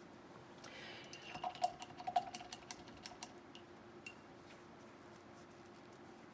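A quick run of light clicks and taps, some with a faint ringing, thinning out and stopping about four seconds in: painting supplies being handled at the palette. A faint steady hum lies underneath.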